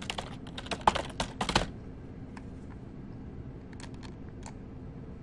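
Typing on a computer keyboard: a quick run of keystrokes for about a second and a half, then a few isolated faint clicks later on.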